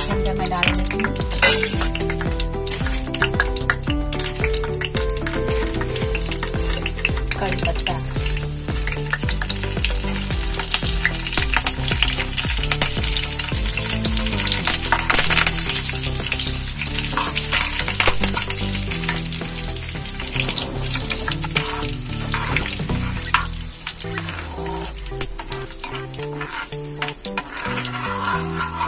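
Dried red chillies, curry leaves and spice seeds sizzling and crackling in hot oil in a kadai, stirred with a spoon: the tempering (tadka) for sambhar. Background music plays underneath.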